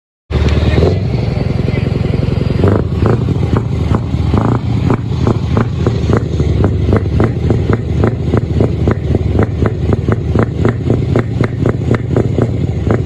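Scania V8 truck engine running with a loud, steady deep rumble, cutting in suddenly. From about three seconds in, sharp regular clicks sound over it, roughly three a second.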